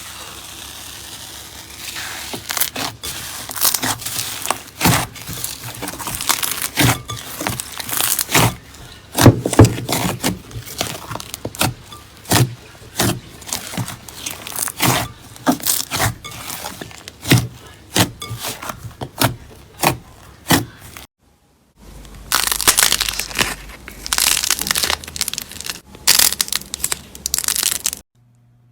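Slime being pressed and squeezed by hand, giving rapid sharp crackles and pops. The sound cuts out for a moment about 21 seconds in, and a second run of crackling follows.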